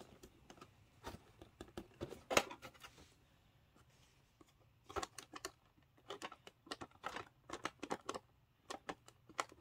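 Scattered small plastic clicks and taps as a Billy Bass singing fish's switch and activation button are worked, a louder click about two seconds in and a run of clicks in the second half. The fish gives no motor noise or song in reply: this unit is dead.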